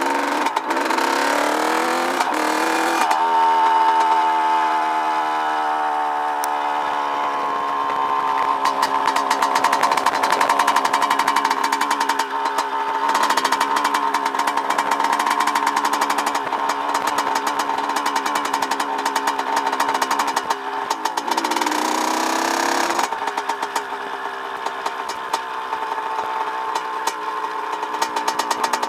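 Dirt bike engine running under way: it revs up over the first few seconds, drops in pitch as it shifts up about three seconds in, then holds a steady cruise. A little past twenty seconds it revs up again and shifts up once more.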